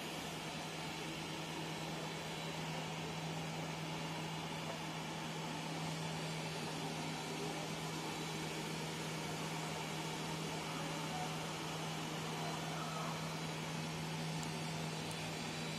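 Plastic granule extrusion line running: a steady mechanical drone from the drive motor and gearbox, with a constant low hum under an even hiss.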